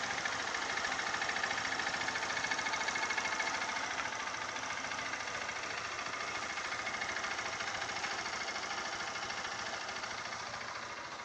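Honda CG 150 Titan's single-cylinder four-stroke engine idling with a steady, fast metallic rattle, a noise the mechanic places on the clutch side of the engine.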